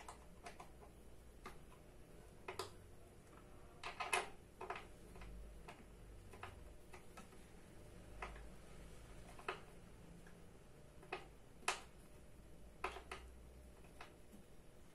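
Scattered light clicks and taps of metal and plastic, irregularly spaced, with a small cluster about four seconds in and a sharp one near the end: an Allen key and chair parts being handled while an office rolling chair is put together.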